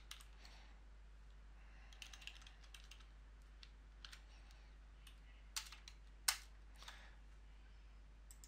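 Typing on a computer keyboard: faint, irregular key clicks with gaps between them, a few louder ones past the middle.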